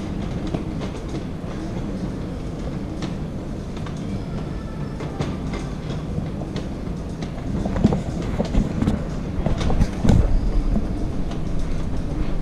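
Inclined moving walkway running: a steady low rumble with scattered clicks and clacks from its moving treadway, and a few louder knocks about two-thirds of the way through.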